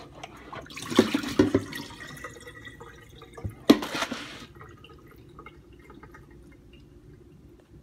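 Water splashing as a whole raw chicken is rinsed in a plastic container in a kitchen sink, loudest about a second in and again near the middle, where there is one sharp knock; quieter after that.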